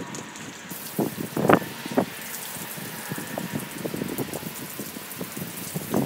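Rain falling in a steady hiss, with a few louder heavy drops striking about one to two seconds in.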